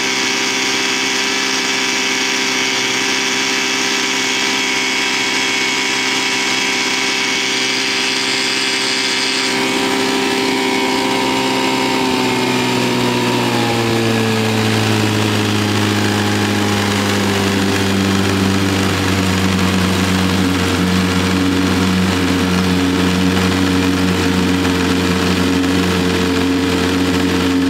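1967 Evinrude Fisherman 6 hp two-stroke outboard running under way at a steady speed; about halfway through it is throttled back, its pitch dropping over a couple of seconds, and it settles into a steady run at the lower speed.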